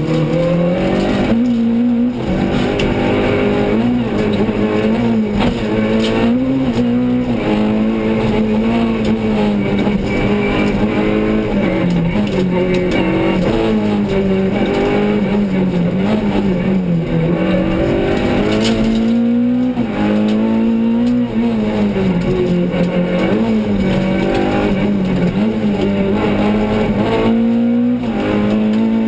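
Renault Clio Sport rally car's four-cylinder engine, heard from inside the cabin, driven hard through a stage. The revs climb and drop again and again with gear changes and throttle lifts, with a longer drop and climb about two-thirds of the way in.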